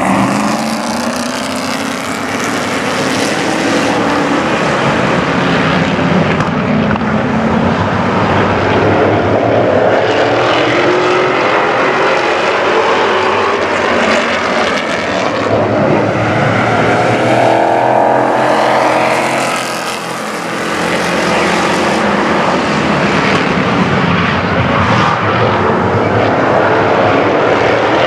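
A pack of Pro Truck race trucks' engines running at racing speed, the pitch of several engines rising and falling as they pass and accelerate. The engine noise dips briefly about two-thirds of the way through, then swells again.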